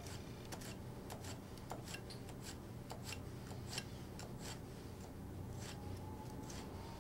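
Global GS-1 kitchen knife dicing a pepper on a cutting board: a run of light, irregular cut-and-tap strokes, about one or two a second.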